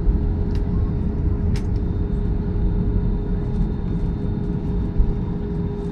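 Airliner cabin noise: a steady low rumble of engines and airflow with a constant hum running through it.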